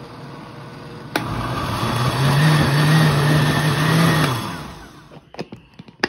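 Countertop blender pureeing cooked corn in a short burst: the motor starts about a second in, runs steadily for about three seconds, then winds down, followed by a few light clicks.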